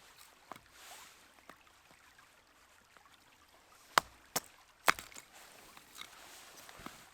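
Dry sticks snapping: a few faint cracks, then three sharp, loud snaps about four to five seconds in.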